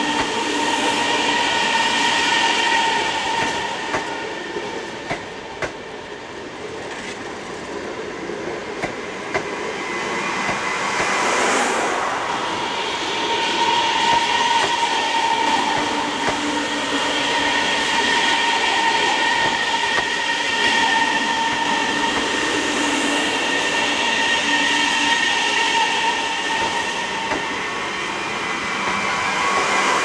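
CSR electric multiple-unit train rolling slowly past at close range, with a steady high whine over the rolling noise and a few short clicks of the wheels over rail joints. The sound dips for several seconds, surges briefly and then swells again.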